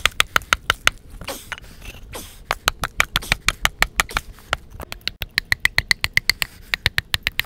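Hammer blows chipping old concrete footing off a wooden fence post: rapid, evenly spaced sharp strikes, about four to five a second, with a looser patch about a second in.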